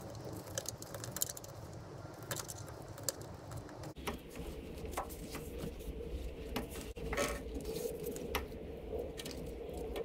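Light clicks and rattles of a rubber hose and its fittings being handled and pushed into place on a Honda CR-V's intake manifold by gloved hands.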